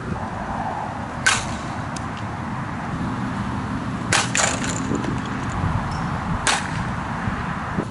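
A softball bat striking softballs: three sharp cracks, about a second in, near the middle and two-thirds through, over a steady background hiss.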